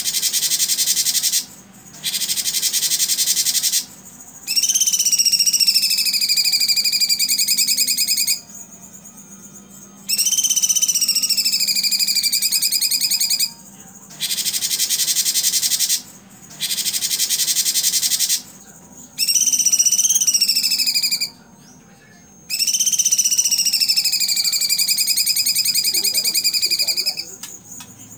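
Cucak cungkok singing its harsh, rapid-fire 'tembakan' bursts, each one to four seconds long with brief gaps between them. Several bursts carry a clear whistled note that leaps up, then slides down and holds.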